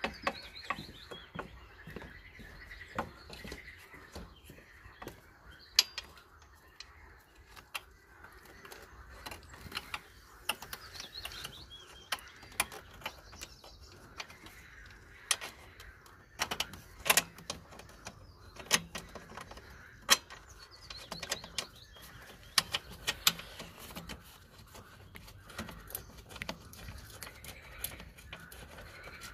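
Irregular clicks and light knocks of metal and plastic as a new rear shock absorber is worked by hand up into its upper mount on a Honda Dio scooter's frame, with birds calling now and then.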